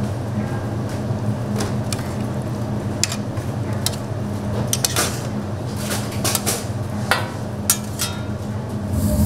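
Dishes and kitchen utensils clinking and knocking in scattered strikes, one with a short ring, over a steady low hum.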